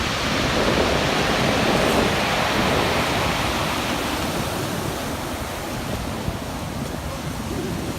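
Ocean surf: a steady rush of breaking waves that swells over the first few seconds, then eases.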